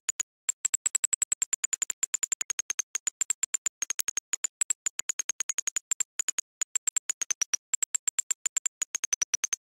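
A rapid train of short electronic beeps, about nine a second, each a high-pitched tone that drifts up and down in pitch, broken by a few brief gaps.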